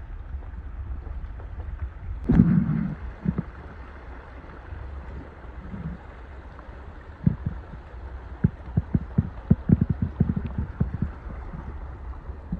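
Vehicle driving along a rough back road, heard from inside: a steady low rumble of engine and tyres, a heavy thump about two seconds in, and then a run of quick knocks and rattles as it goes over bumps.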